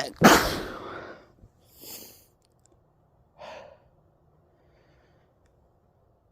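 A person's sneeze, sudden and loud, at the start as part of a sneezing fit, followed by a sniff and a breath over the next couple of seconds.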